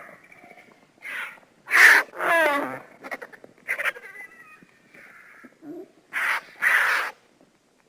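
Imagined calls of the extinct terror bird Titanis walleri, a sound-effect creature voice: a series of short, loud animal cries, one about two seconds in gliding down in pitch with a wavering tremble, and two loud cries close together near the end.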